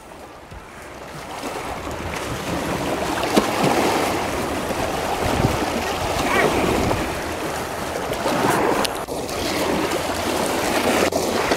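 River water washing and lapping over shoreline rocks, a steady rushing wash that swells and eases.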